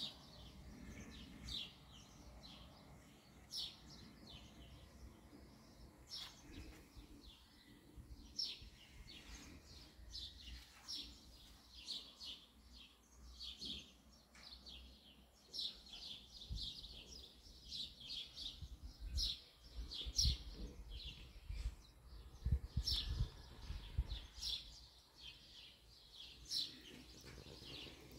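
Small birds chirping: many short, high chirps throughout. A low rumble comes and goes underneath, strongest past the middle.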